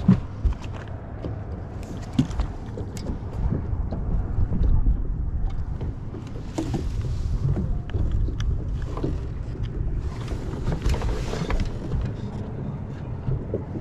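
Wind rumbling on the microphone in an open boat, with scattered light clicks and knocks as a crappie is unhooked and handled on the deck. Two short rushes of hiss come about halfway through and again later.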